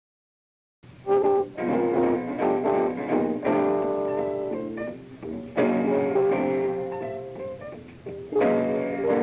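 Jazz trio of guitar, double bass and piano playing, from an old live recording; after about a second of dead silence the music comes in with loud struck chords, new phrases starting twice more.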